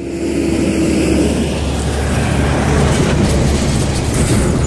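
Road traffic passing close by: a steady rush of engine and tyre noise with a deep rumble, swelling slightly as the vehicles go past.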